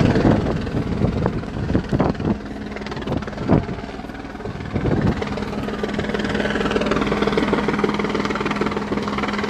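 Steady low engine drone with a pulsing beat, broken by several sharp knocks in the first five seconds; a steady hum joins about five seconds in.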